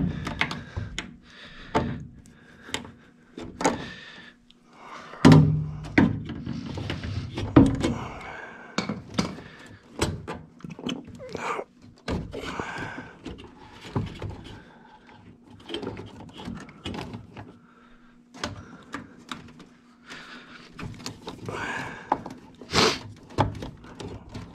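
Hands and tools working inside a furnace cabinet: a string of irregular clicks, knocks and rattles from pliers, sheet metal and plastic fittings and wiring. The heaviest thumps come about five to eight seconds in, and there is a sharp click near the end.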